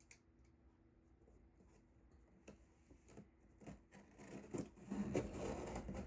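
Scissor blade slitting and scraping along the packing tape on a cardboard box: a few faint clicks at first, then from about four seconds in a louder, rough, uneven scraping as the blade drags through the tape.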